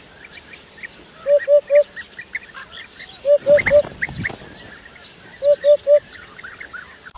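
A bird calling in sets of three short, identical notes, three times over with pauses between, while smaller birds chirp faintly and rapidly in the background.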